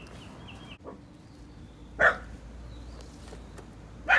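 A dog barking twice, two short barks about two seconds apart.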